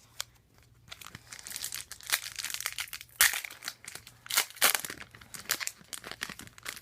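A trading-card pack wrapper being torn open and crinkled. Quiet at first, then a run of sharp crackles and rustles from about a second in.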